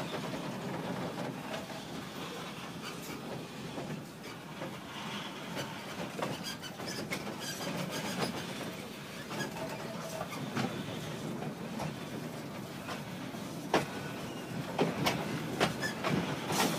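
Passenger train running, heard from on board: a steady rumble and rattle of the carriage with scattered clicks and knocks, the knocks sharper and more frequent near the end.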